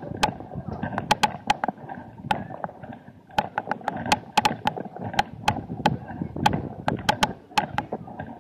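Busy pedestrian street crowd: a murmur of many voices, cut by frequent sharp, irregular clicks and knocks, several a second.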